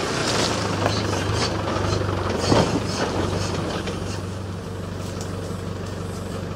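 Land Rover Discovery's engine running steadily at low revs, with a single knock about two and a half seconds in.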